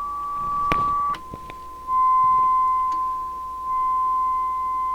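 A steady audio test tone of about 1 kHz. It sits slightly higher in pitch for the first second, cuts out with a click, then comes back louder at about 1 kHz roughly two seconds in and holds steady.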